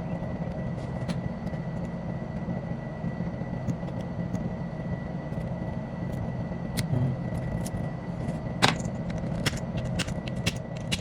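A steady machine hum with a thin high whine, under scattered light clicks and taps. The clicks come more often near the end, with one sharper click about three-quarters of the way through.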